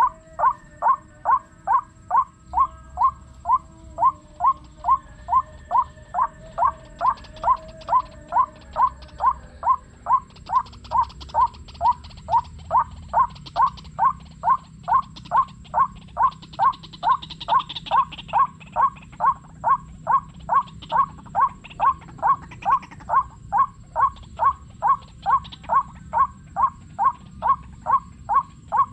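White-breasted waterhen call, one identical note repeated at a steady pace of about two a second at even loudness, played on a loop through a homemade speaker to lure the birds.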